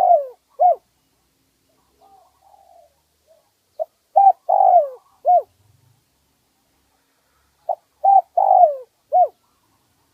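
Spotted dove cooing: two full phrases about four seconds apart, each a short note, two quick coos, a longer falling coo and a closing coo. The end of an earlier phrase sounds right at the start.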